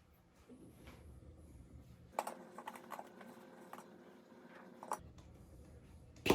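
Light clicks and taps of espresso grinder parts being handled and fitted, with a sharper click near the end as a part presses into place.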